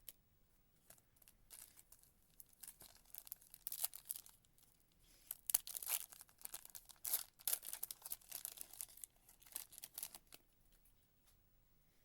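Foil wrapper of a Panini Prizm football card pack being torn open and crinkled: a run of sharp crackling rips from about a second in until near the end.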